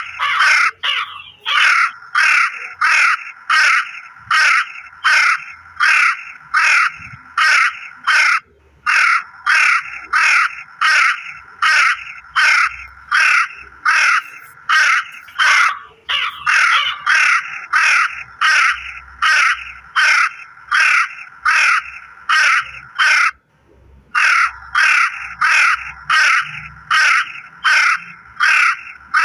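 Crow cawing over and over in harsh calls, about two a second, with a few short pauses.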